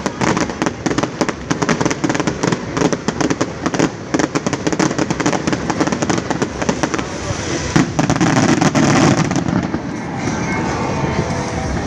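A fireworks display: rapid, dense cracks and bangs, with one loudest bang about eight seconds in. The bangs thin out near the end.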